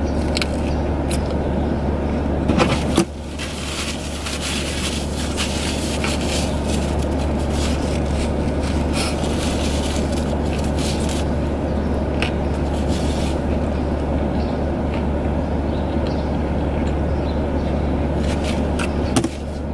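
Steady low hum inside a parked car's cabin, with a stretch of rustling and scraping from handling the food and its wrapping in the middle. The hum drops abruptly in level twice, about three seconds in and near the end.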